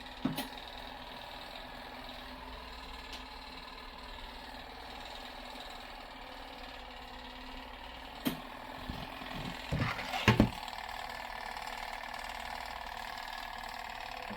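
Portable twin-tub washing machine running with a steady motor hum. A single knock sounds just after the start, and a cluster of knocks and thumps comes about ten seconds in.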